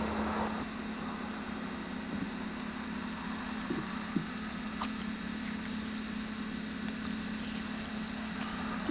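Distant Conrail diesel-electric locomotives in dynamic braking on a downgrade, heard as a steady drone with a low hum as the hopper train approaches.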